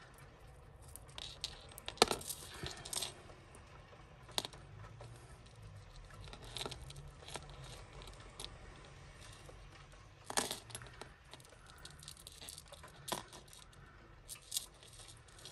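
Tangled metal necklace chains clinking as they are picked apart by hand: scattered light clicks and jingles, the sharpest about two seconds in and again around ten seconds in.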